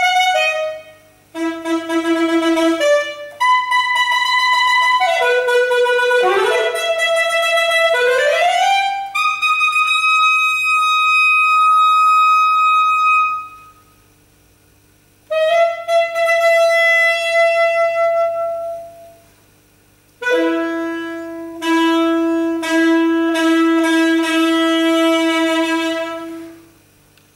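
Unaccompanied saxophone playing a contemporary solo piece in separate phrases with short silences between them: quick notes with sliding, scooping pitch changes at first, then long held notes, the last phrase dying away near the end.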